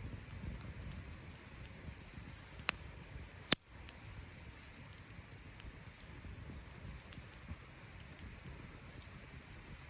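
Wood campfire crackling, with scattered small ticks and two sharper pops about two and a half and three and a half seconds in.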